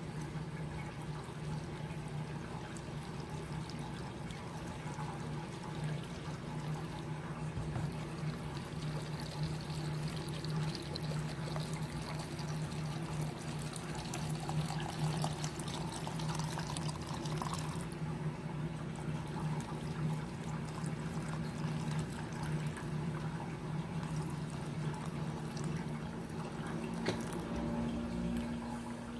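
Apple cider vinegar pouring from a plastic jug into glass jars of chopped vegetables, the liquid sound fullest in the middle stretch. A steady low hum runs underneath.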